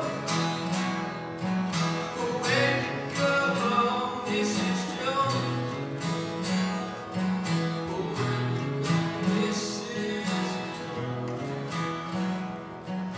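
Steel-string acoustic guitars played live, chords strummed over a moving bass line, with a young man's voice singing at times.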